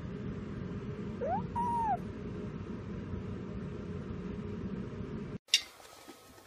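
A kitten purring close to the microphone, with a short chirping meow that rises and falls about a second in. Near the end the purring cuts off and a sharp knock follows.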